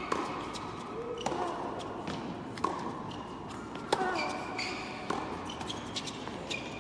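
Tennis rally: racket strikes on the ball about every second and a quarter, five in all, each with a short echo in a large indoor hall. Short high squeaks of tennis shoes on the hard court come between the shots.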